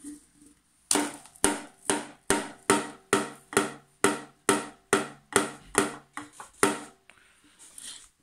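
A Pringles can being banged over and over: about fifteen hollow, slightly ringing knocks at an even two to three a second, stopping near the end.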